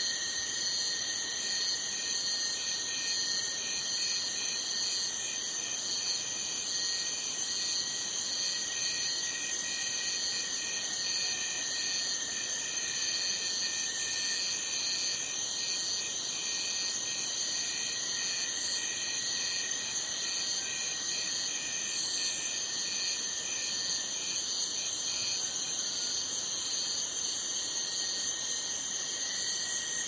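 Night-time chorus of crickets: several steady, high-pitched trills layered at different pitches, one of them pulsing about twice a second, over a faint hiss.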